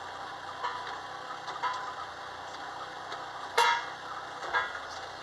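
Play excavator's motor running with a steady hum, and a few sharp clanks as its arm and bucket are worked, the loudest about three and a half seconds in.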